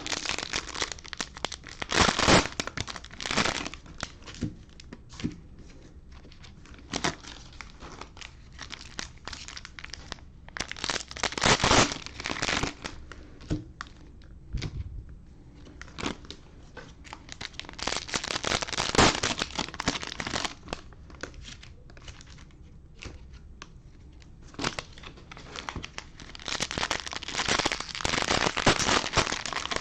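Cellophane and plastic wrapping crinkling and tearing as a sealed box of Panini Mosaic football cello packs is unwrapped and the packs are taken out. It comes in bursts every few seconds, with quieter handling in between.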